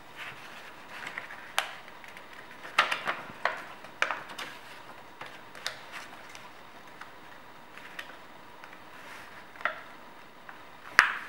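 Origami paper being folded and creased by hand on a wooden table: scattered crinkles and sharp paper crackles, a cluster of them a few seconds in and the loudest single crackle near the end.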